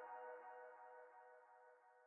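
Background music ending on a held chord that fades away to near silence.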